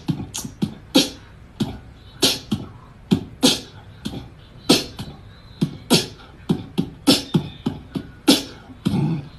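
A rhythmic percussive beat in the style of beatboxing: a strong sharp hit about every second, with lighter hits between.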